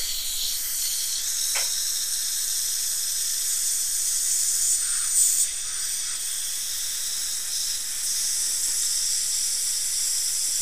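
Dental suction tip hissing steadily in the patient's mouth, with a brief tick about one and a half seconds in.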